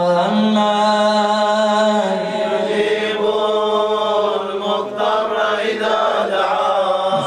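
A man chanting solo into a microphone, a Shia devotional recitation sung in long, melodic held notes, with a brief break about two seconds in and another near the end.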